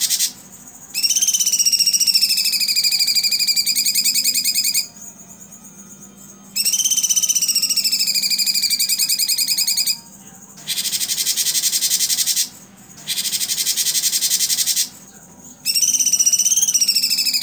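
Cucak cungkok singing long rapid-fire song phrases, its 'tembakan' bursts: harsh buzzy rattling trills alternating with fast, wavering, whistled trills. Each phrase lasts about 1.5 to 4 seconds with short pauses between, and a faint steady hum runs underneath.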